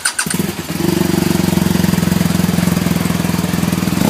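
BMW liquid-cooled boxer-twin motorcycle engine catching on the starter about a quarter second in, then settling into a steady idle with an even, fast pulse.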